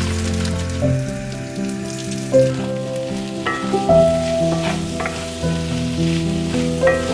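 Gentle instrumental background music of held, slowly changing notes, over a steady high hiss.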